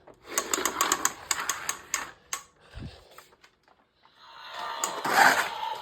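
Plastic Hot Wheels stunt track set being handled: a quick run of sharp plastic clicks and rattles, then a pause, then a rising whirr with a steady hum that grows loudest near the end.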